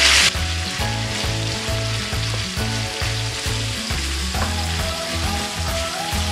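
Chicken gizzards frying and sizzling in a nonstick pan as a wooden spatula stirs them, the sizzle loud at first and dropping sharply just after the start. Background music with steady low notes plays underneath.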